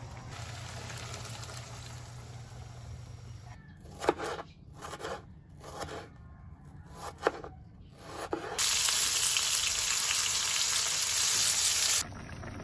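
Butter shrimp bubbling in a wok. Then a kitchen knife slicing cherry tomatoes on a wooden board, a handful of irregular knocks. Then the loudest part: a loud, even sizzle as garlic and tomato fry in hot oil in a wok, stopping suddenly about a second before the end.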